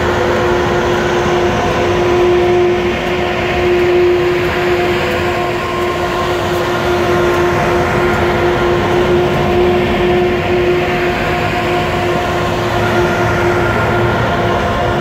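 Transnet class 18E electric locomotives departing slowly and passing close by: a steady hum of several held tones over the rumble of wheels on rail.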